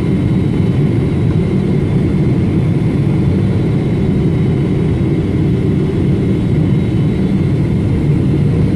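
Steady jet airliner cabin noise on final approach: engine and rushing air heard from a window seat beside the engine, a deep even rumble with a faint high whine over it.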